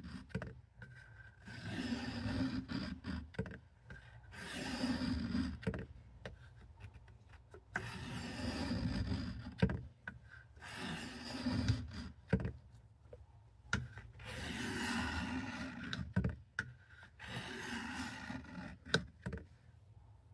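Oiled sharpening stone rubbing along the edge of a Cattaraugus 225 Quartermaster knife at a fixed angle, about seven strokes each a second or two long, with light clicks between them. The blade's tip is being worked on a finer stone to refine the edge.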